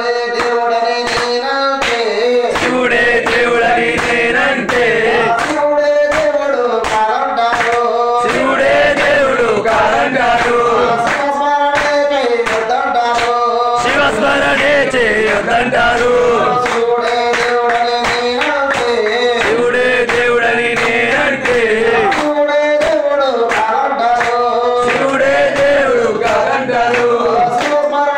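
A man sings a Telugu devotional song to Shiva through a microphone and loudspeaker, with hands clapping in time throughout.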